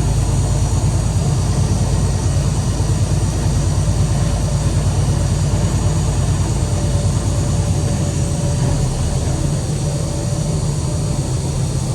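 Heavy vehicle engine running steadily under way, a constant low drone.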